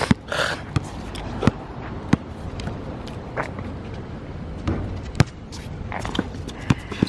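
A basketball bouncing on a hard outdoor court during play, with irregular sharp thuds of the ball and players' footsteps.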